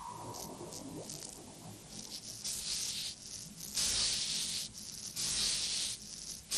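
Dry sand hissing and rustling in repeated swells, each lasting about a second, as a figure made of sand shifts and pushes itself up. A brief ringing tone sounds right at the start.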